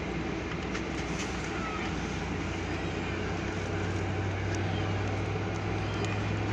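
Airliner cabin noise inside a Boeing 737-900 on the ground: a steady rumble and hiss. A low steady hum comes in about two seconds in and grows a little louder.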